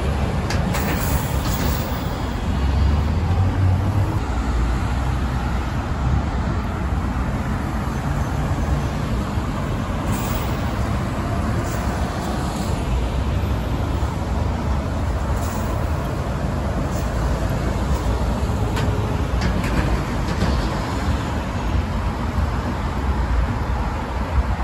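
Buses running in street traffic, their diesel engines giving a steady low rumble, with a few short high air-brake hisses.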